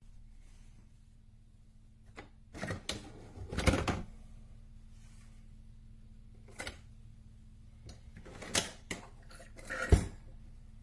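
Irregular clicks and knocks, the loudest a cluster a few seconds in and a sharp knock near the end, over a steady low electrical hum.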